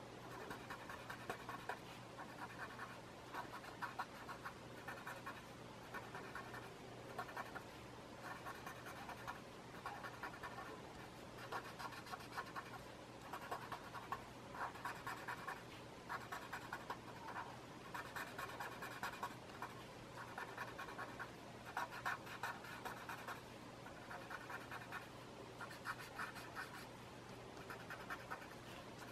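Paper blending stump rubbing graphite shading into a paper tile: a dry, scratchy rubbing in short runs of quick strokes, each run about a second long with brief pauses between.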